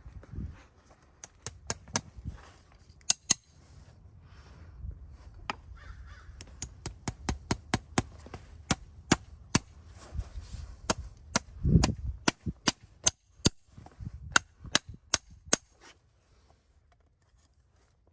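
A run of sharp clicks, irregular and at times several a second, over a low rumble, with one heavier low thud about two-thirds of the way in; the clicks stop a couple of seconds before the end.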